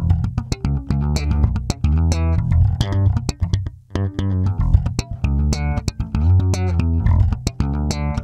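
Electric bass guitar played slap-style: a fast funk solo of sharp thumbed and popped notes with a deep, punchy low end.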